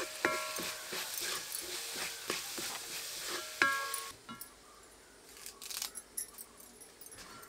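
Metal ladle stirring shallots frying in a metal kadai: scraping and knocks against the pan, with two sharp strikes that leave the pan ringing, one just after the start and one about three and a half seconds in. Under them is a sizzle that drops away about four seconds in, leaving only scattered faint clicks.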